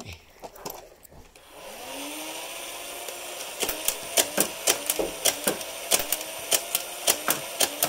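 Motorized Nerf blaster spinning up with a rising whine about two seconds in, then firing darts in quick succession, about four shots a second over the steady motor hum.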